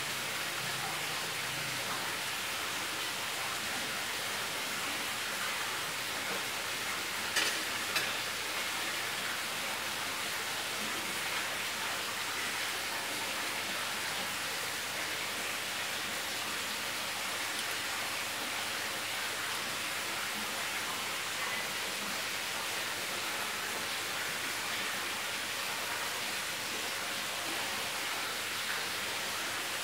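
Pancake batter sizzling in a non-stick frying pan: a steady, even hiss as it cooks and bubbles form on top. Two short clicks a little after seven seconds in.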